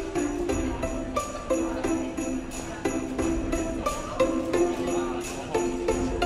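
Background music with jingling bells over a steady beat.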